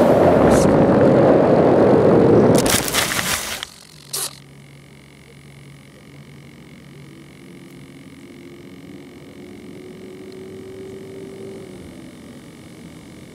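Wind rushing over the microphone of an RC plane skimming low over grass, then about a second of crackling and scraping as the plane slides into tall grass and stops. A sharp click follows, and after that it is quiet with a faint steady hum.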